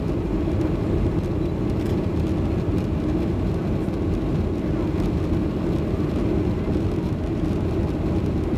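Steady cabin noise of a Boeing 737-800 shortly after take-off, heard from a window seat over the wing: the CFM56 engines and airflow make an even rumble with a hum in the low-middle range.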